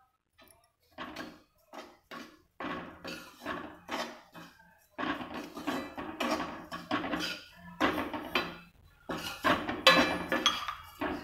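Metal slotted spoon scraping and stirring sugar into browned water chestnut flour in a metal kadai, in quick repeated scrapes against the pan. The strokes start about a second in, sparse at first, and become louder and busier about halfway through.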